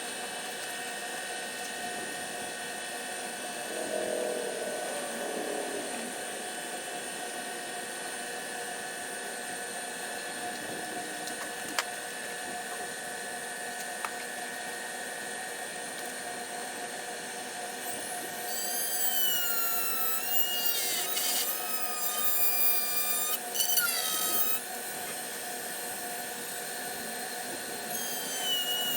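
Steady machine hum, joined about two-thirds of the way in by a small power tool's motor whining for several seconds, its pitch falling and then holding steady, with a couple of short harsher bursts. The whine starts again near the end.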